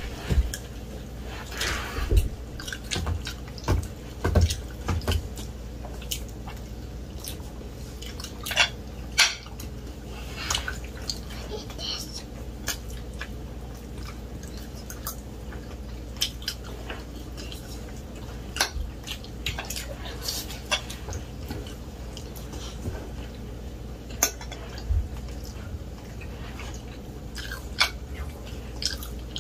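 Close-miked eating by hand: scattered short wet clicks and smacks of chewing, and of fingers tearing chicken and working rice against plates, some sharp, most faint.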